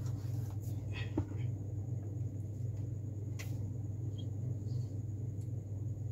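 A duster wiping a whiteboard, then a marker tapping and writing on the board, with a few small clicks, over a steady low electrical or fan hum.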